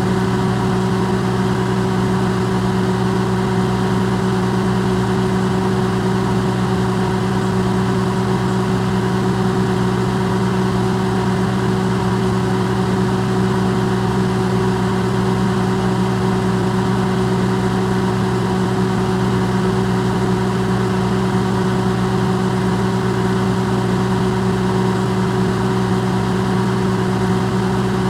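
Electrolux microwave oven running: a steady, unchanging low hum with a fainter whir over it, recorded amplified.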